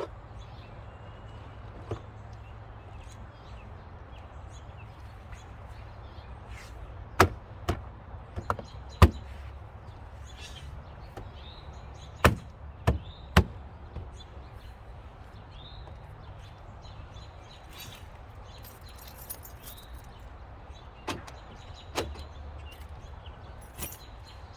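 Chevy Impala interior door panel being pressed back onto the door, its plastic retaining clips snapping into their holes. A series of sharp knocks and snaps comes in three clusters, about a dozen in all, over a low steady hum.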